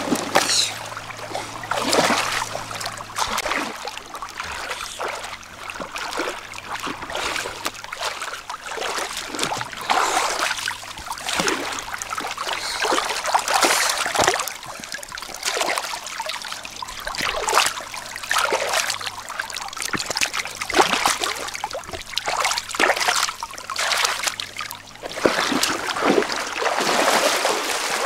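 Irregular splashing and trickling of shallow river water as hands scoop and pour water over a large fish lying on a rock in the current. Near the end, feet splash through the shallows.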